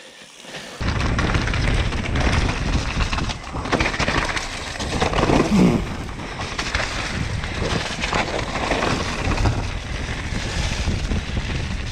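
Mountain bike being ridden fast down a trail: wind buffeting the head-mounted camera's microphone over tyre roar and chassis rattle, starting about a second in.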